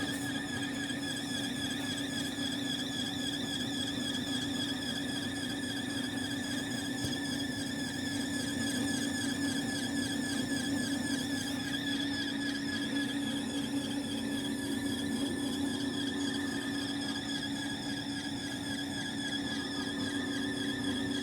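Split air conditioner unit running: a steady hum with several high whining tones that waver evenly up and down.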